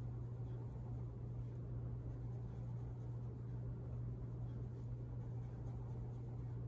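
A red pencil scratching on paper in short back-and-forth colouring strokes, under a steady low hum that is the loudest thing heard.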